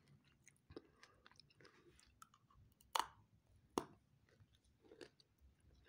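Faint chewing of candy-shelled M&M's chocolate eggs, with two sharper crunches about three and four seconds in.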